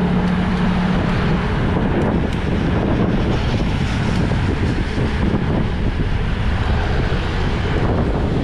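Wind rushing over the microphone of a camera on a moving bicycle, mixed with road and motorcycle traffic noise. A steady engine hum fades out about a second in.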